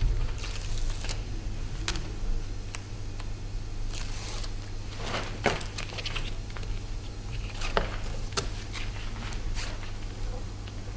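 Sailcloth and a webbing strap being handled and pressed down onto adhesive tape: crinkling rustles, short tearing sounds and scattered sharp clicks, over a steady low hum.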